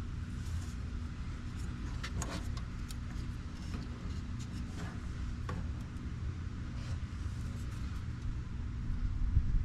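A vehicle engine running steadily at idle, with a few short, light clicks and taps scattered over it.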